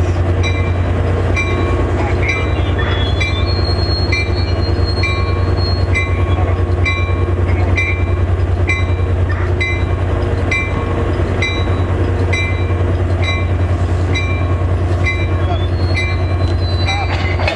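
Stalled NJT ALP-45DP dual-mode locomotive sitting with its diesel prime mover idling: a steady low hum. A bright ding repeats about twice a second over it.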